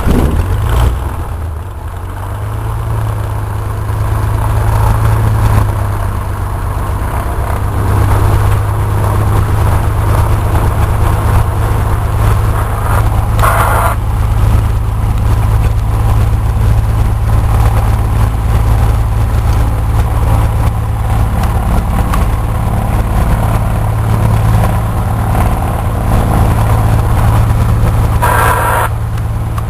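Cessna 172's piston engine running steadily at idle just after start, its low hum setting in loudly at the start.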